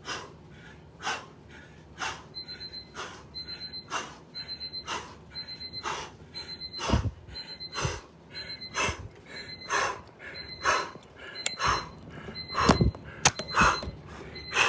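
A man breathing hard in sharp, rhythmic huffs, about one a second, as if exerting himself through an exercise. A few heavier low thumps come near the end, from the phone being handled.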